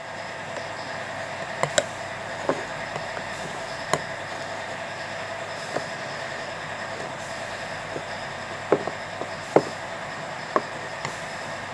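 Scattered light clinks and knocks of a ladle and dishes as rice is served, about nine sharp taps at irregular intervals, over a steady background hum.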